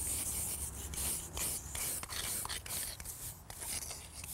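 Wire brushes scraping and scrubbing loose cement and dirt off an old concrete bed, in quick, irregular back-and-forth strokes.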